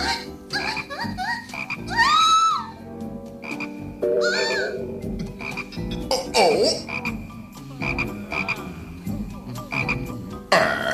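Cartoon frogs croaking over and over: many short, varied calls, some gliding up and down in pitch, with one long arched croak about two seconds in.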